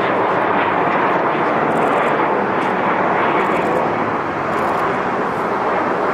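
Twin jet engines of a Boeing 777 at takeoff thrust just after liftoff, a loud, steady roar as the airliner climbs away, easing slightly about four seconds in.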